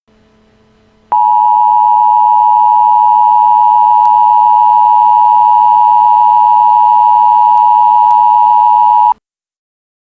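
A loud, steady electronic broadcast tone just under 1 kHz, from a fake emergency-alert broadcast. It starts sharply about a second in, after faint hiss and hum, and cuts off abruptly about nine seconds in.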